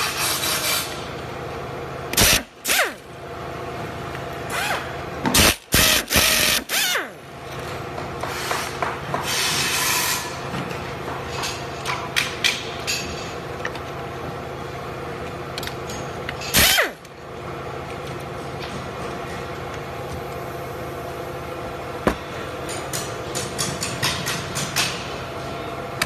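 Hand work on an electric scooter: short runs of a cordless drill-driver and clatter of handled parts and screws, with loud bursts about two seconds in, around six seconds and around seventeen seconds, over a steady hum.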